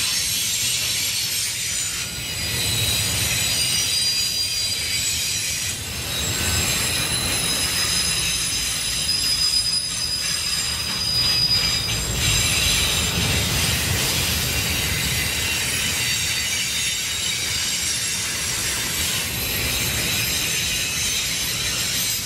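Autorack freight cars rolling past: a low rumble of steel wheels on rail under a steady, high-pitched squeal from the wheels.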